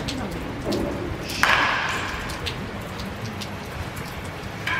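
Baseball practice sounds in a large indoor hall: scattered sharp knocks and taps over a low steady background, with one louder knock about a second and a half in.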